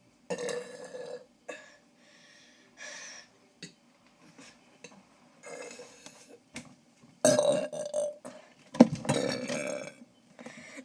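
A person burping over and over, a run of separate burps of varying length with short pauses between them. The two longest and loudest burps come near the end.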